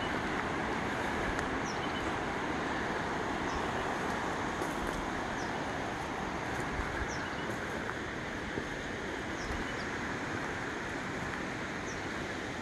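Steady rushing of flowing creek water, with faint short high chirps every couple of seconds.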